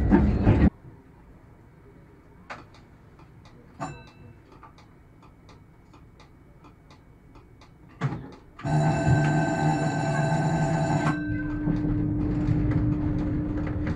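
A tram's warning bell ringing for about two and a half seconds, loud and steady, after a quiet stretch with a few sharp clicks. The tram's running noise cuts off suddenly under a second in and comes back after the bell as a steady hum with a low whine.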